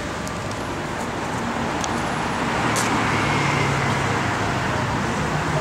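Road traffic running past. It grows louder about halfway through as a vehicle passes, with a low engine hum under the noise.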